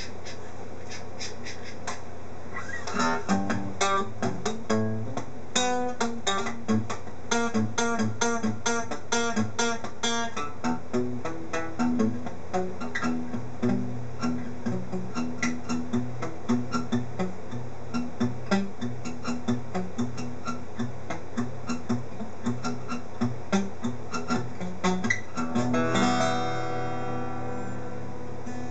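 Guitar music: a run of quick picked notes begins about three seconds in and goes on steadily, turning to strummed chords near the end, over a steady low hum.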